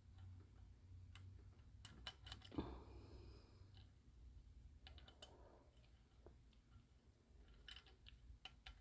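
Faint, irregular clicks of a lock pick pushing on the pins of a cross lock under tension, with a small cluster of clicks near the end.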